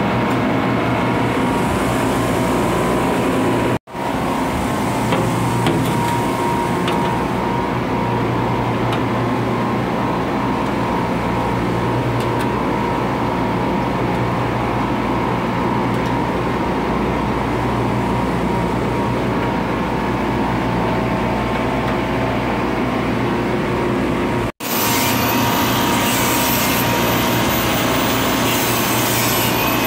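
Steady mechanical running noise with a low hum and a faint steady tone, from a rooftop deck of running refrigeration condensing units. Near the end, when the picture cuts to hand work on the condenser, a scraping, rubbing sound joins it.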